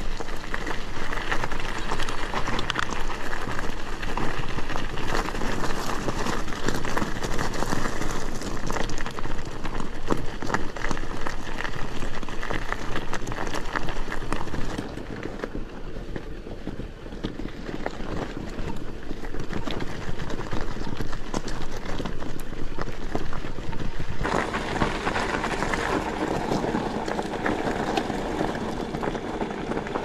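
Cube Stereo Hybrid e-mountain bike riding a rough trail: tyres crunching over stones and roots, with the bike rattling. The noise eases off for a stretch in the middle and picks up again near the end.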